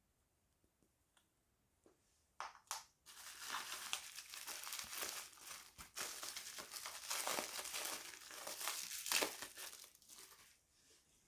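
Watch packaging wrap crinkling as it is handled and unwrapped: two sharp rustles about two and a half seconds in, then continuous crinkling for about seven seconds that fades out near the end.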